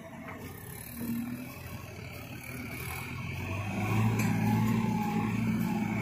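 JCB 3DX backhoe loader's four-cylinder diesel engine running as the machine travels, with a wavering whine over it. The engine gets louder and revs up about four seconds in.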